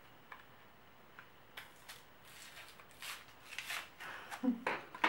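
Faint scattered clicks and soft rubbing as a lipstick is handled and applied to the lips, then a brief closed-mouth hum near the end.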